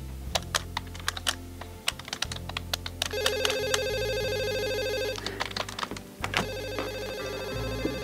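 Office desk telephone ringing with a fast electronic trill: two rings, the first about three seconds in lasting some two seconds, the second starting about six seconds in.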